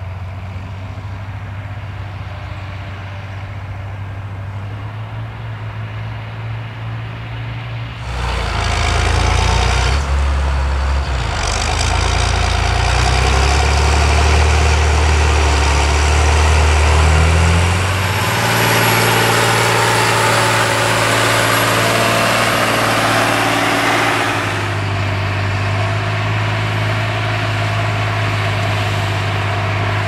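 John Deere 8210T tracked tractor's 8.1-litre six-cylinder diesel running under load while ploughing. About eight seconds in it grows much louder as it comes close, with a deep, shifting engine note and a rush of noise, and a high thin whine joins for a few seconds. It drops back to a steadier, more distant sound near the end.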